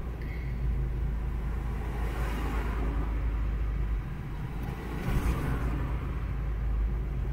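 Low steady rumble of a car waiting in traffic, heard from inside the cabin, with oncoming cars passing close by; two of them swell up briefly, about two and five seconds in.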